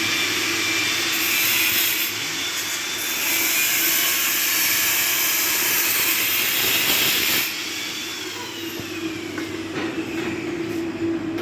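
Loud, steady rushing machine noise with a steady low hum under it. The rushing drops off sharply about seven and a half seconds in, leaving the hum and a quieter rush.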